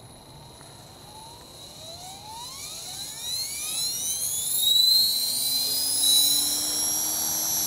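Align T-Rex 450 electric RC helicopter spooling up on the ground: the whine of its brushless motor and drive gears rises steadily in pitch and grows louder for about four seconds, then levels off into a steady high whine as the main rotor reaches flying speed.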